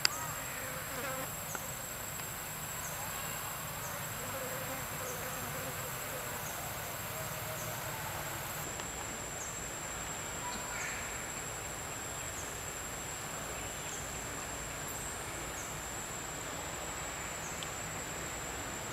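Insect chorus: a steady high-pitched drone with short chirps repeating about once a second. A single sharp click comes right at the start.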